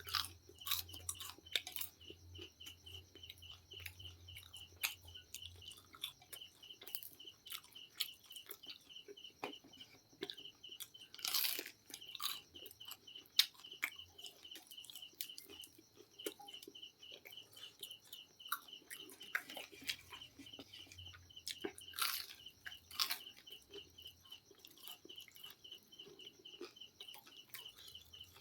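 Close-up crunching and chewing of crispy KFC fried chicken: irregular crisp bites and mouth noises, with louder crunches about a third of the way in and again past two thirds. A cricket chirps in fast steady pulses behind it.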